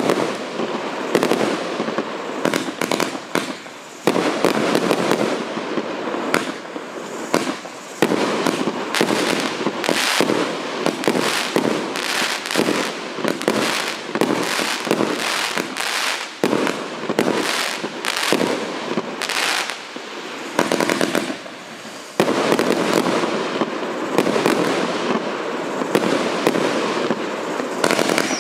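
A 184-shot consumer firework battery (cake) firing shot after shot in quick succession, a continuous run of launches and aerial bursts. There are a few short lulls between sequences.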